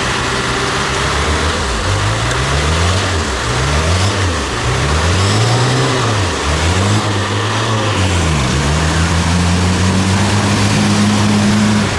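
Off-road 4x4 engine revved up and down about five times, then held at high revs for the last few seconds, as the vehicle works through a mud obstacle.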